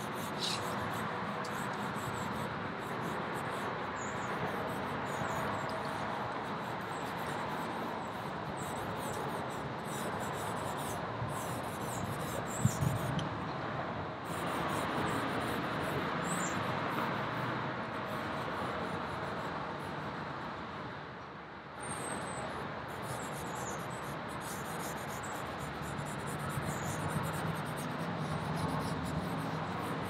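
Charcoal scratching and rubbing across sketch paper on an easel in steady strokes, easing off briefly about two-thirds of the way through.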